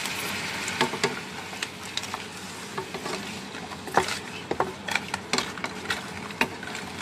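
Crabs being stirred in a wok with a wooden spatula: irregular sharp clacks and knocks of shells and spatula against the pan, the strongest about four seconds in. Under them is a steady sizzle from the water just added to the hot oil.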